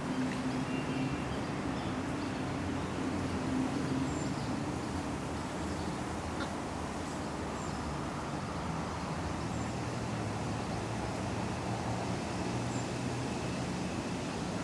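City park pond ambience: a steady wash of wind over a low background hum, with ducks calling now and then and a few faint, short high bird calls.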